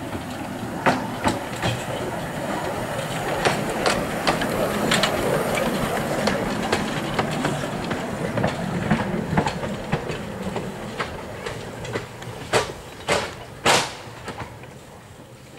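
Bagnall 2-4-0 narrow-gauge steam tank engine moving slowly over the track, its wheels clicking irregularly over rail joints and points, with a hiss of steam. Three louder clacks come near the end, and then the sound fades as the engine moves away.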